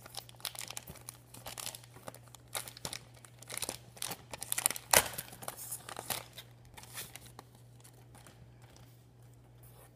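Clear plastic wrapping on a pack of sticker sheets crinkling and tearing as it is pulled off by hand, in irregular crackles with the loudest about five seconds in; the handling thins out over the last few seconds.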